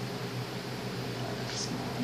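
Steady low hum and hiss of room noise, with a short rustle about one and a half seconds in.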